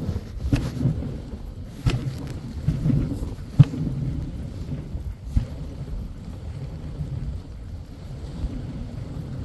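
Dog sled running over a packed snow trail: a steady low rumble from the runners and the ride, broken by a few sharp knocks as the sled jolts.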